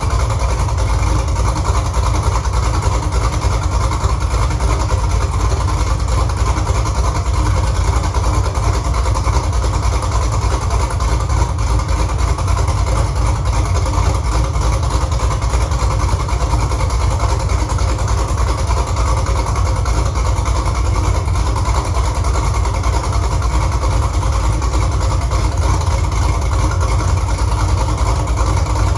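Freshly swapped-in 6.2-litre LS V8 in a 1968 Camaro idling steadily through its headers, being run to heat-cycle the new engine.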